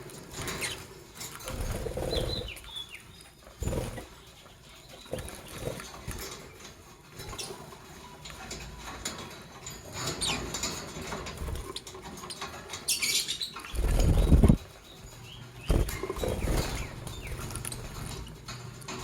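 Lovebirds flapping their wings and scrabbling about, with scattered clicks and scratches and a few brief high chirps. A louder, heavier flurry of wingbeats comes about fourteen seconds in.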